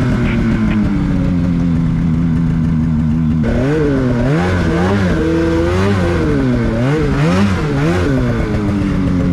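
Polaris 850 Patriot two-stroke snowmobile engine with a Sled Shed Cooker Thing silencer, running steadily and easing off slightly at first. From about three and a half seconds in it revs up and down again and again as the throttle is worked.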